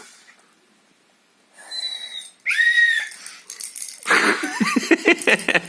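A dog blowing into a whistle held in its mouth. It gives two short breathy whistle notes, the second louder and clearer, then from about four seconds a run of wheezy puffs and snuffles with clicks as it works the whistle.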